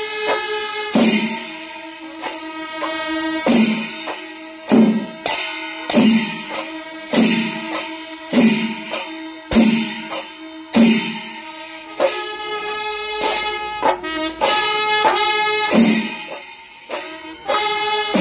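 Kerala temple melam ensemble playing: drum strokes about once a second, each dropping in pitch, with cymbals clashing and wind instruments holding sustained notes above.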